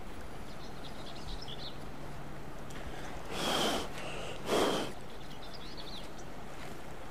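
A person blowing two short puffs of breath about a second apart. Faint high bird chirps come before and after the puffs.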